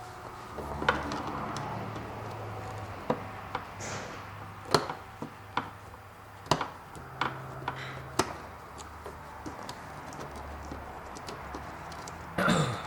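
Irregular sharp clicks and taps of a Torx screwdriver and loosened screws against the plastic dash vent panel, over a low steady hum, with a brief louder noise near the end.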